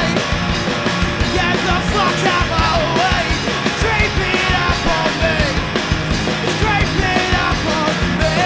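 Punk rock song played loud by a full band, with fast, busy drums and a melodic line that bends up and down over them.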